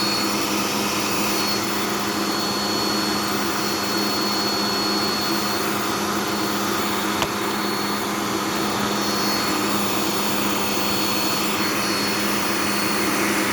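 Upright vacuum cleaner motor running steadily, with a constant hum. A thin high whine over it drops out a little before halfway, and there is a single small click about seven seconds in.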